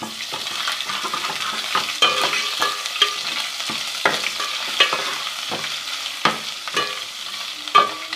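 Ginger-garlic paste frying in hot ghee with browned onion, a steady sizzle, as it is stirred, the utensil scraping and tapping the pan about once a second. The paste has just gone in and is being fried off.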